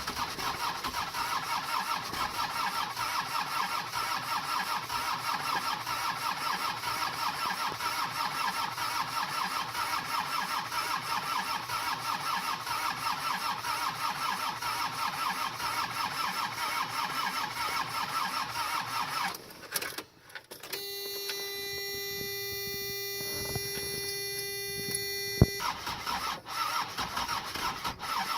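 Starter motor cranking a Mercedes OM617 five-cylinder diesel steadily without it firing, a no-start after new injector nozzles were fitted. About two-thirds of the way through the cranking stops. A steady tone sounds for about five seconds and ends with a sharp click, then the cranking starts again.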